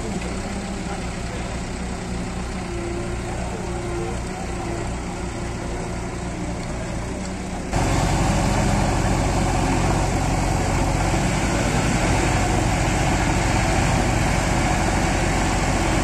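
JCB 3DX backhoe loader's diesel engine running steadily with a low throb. About eight seconds in, the sound cuts abruptly to a louder, fuller engine note.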